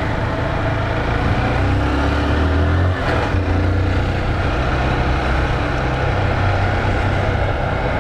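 Motorcycle engine running under way, rising in pitch, then dropping with a brief dip about three seconds in, as at a gear change.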